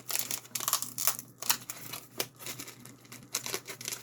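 Heavily taped cardboard package being cut and pulled open with a knife: irregular crinkling and ripping of packing tape and cardboard.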